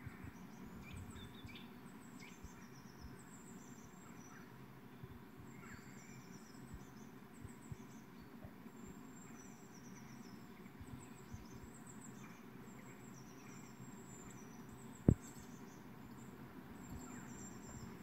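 Small songbirds chirping and twittering in short high notes, faint and continuous, from a garden-bird video playing through computer speakers. One sharp click about fifteen seconds in.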